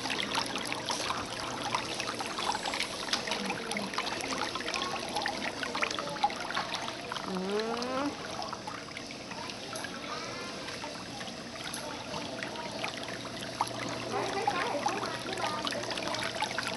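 Whirlpool foot bath of a pedicure spa chair churning water around a pair of feet, a steady bubbling and splashing.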